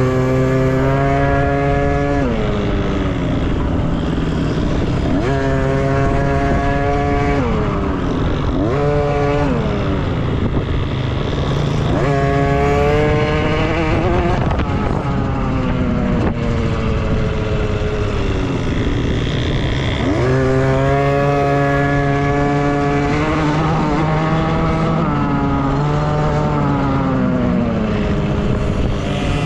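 Dirt bike engines racing off-road. The revs climb, hold and drop again several times as the bikes are throttled up and back off. A steady lower engine drone runs underneath.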